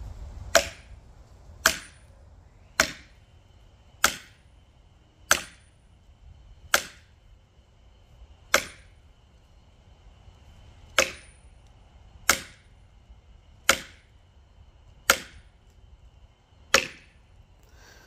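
Short-handled plumb sledgehammer striking the poll of an axe driven into the end of a red oak log, steel on steel, to rive the log along its grain: about a dozen sharp strikes roughly every second and a half, with a longer pause near the middle.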